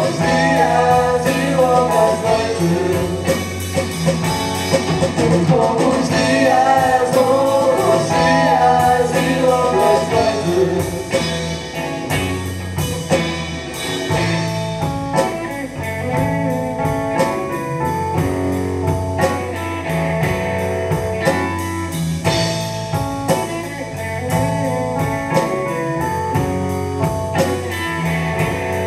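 Live blues band: a woman sings over electric guitar, bass and drums for about the first ten seconds, then the band plays on without vocals, with a steady drum beat.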